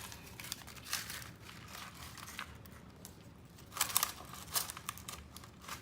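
Crinkling and light plastic clicks of small craft pieces, zip ties and beads, being handled on a paper plate, with a cluster of louder clicks about four seconds in.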